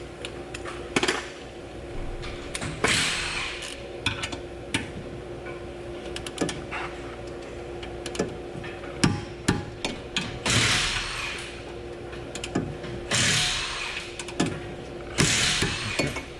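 Torque wrench ratcheting as the rear brake caliper bracket bolts are tightened to torque spec, in several rattling bursts about a second long, with sharp metal clicks and clinks of tools in between.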